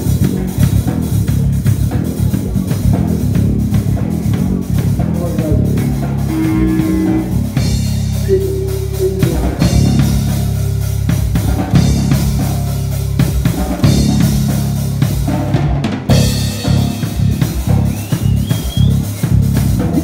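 Live heavy metal band playing: drum kit, electric bass guitar and electric guitar together.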